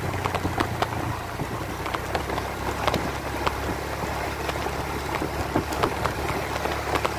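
Motor vehicle on the move: a low, steady engine drone with frequent irregular sharp clicks and rattles over it, typical of riding a rough road.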